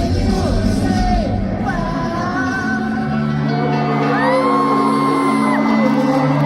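Pop-rock band music with singing and long held vocal notes, with whoops and yells from a crowd.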